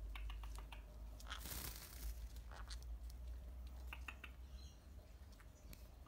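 Faint clicks and rustling from wet green-cheeked conures moving and preening on a rope perch, with a short burst of rustling about a second and a half in.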